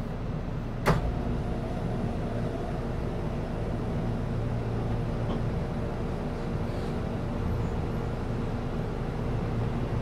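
Steady hum of a Keihan 3000-series electric train standing at an underground platform, with a few faint steady tones over it. A single sharp knock about a second in.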